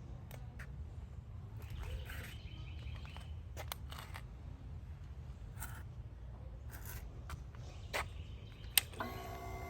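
Faint outdoor background rumble with scattered light clicks and a few faint chirps, then near the end a sharp click and the Royal Enfield Classic 500's single-cylinder engine starting up through its short bottle silencer.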